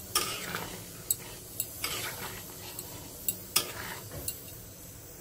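Metal ladle stirring a simmering chicken curry in a steel kadhai, with a few sharp clinks as it knocks against the pan, over the low hiss of the simmering gravy.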